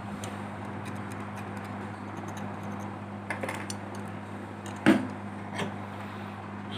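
Small tools and parts clicking and tapping during phone repair work, one louder click near the end, over a steady low electrical hum.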